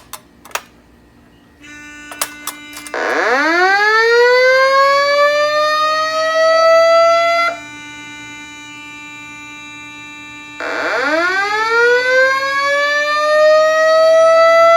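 Simplex 2120 fire alarm voice-evacuation system sounding its slow-whoop tone over the speakers: two long rising sweeps, each climbing in pitch for about four and a half seconds, the first cutting off abruptly and the second starting about three seconds later, with a faint steady tone underneath. It is the alert tone that precedes the spoken evacuation message.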